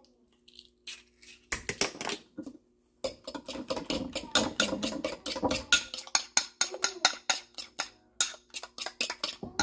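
Metal fork beating egg into mashed banana in a ceramic bowl: a few taps, a short pause, then a fast, steady run of clinks against the side of the bowl.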